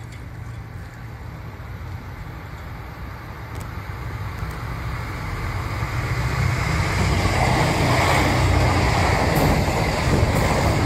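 JR diesel train approaching along the track, its rumble growing steadily louder from about halfway through and loudest near the end.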